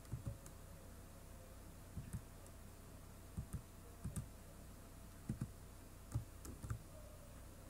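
Computer keyboard keys pressed a few at a time: about seven separate, faint clicks, several in quick pairs, spread through a quiet stretch of code editing.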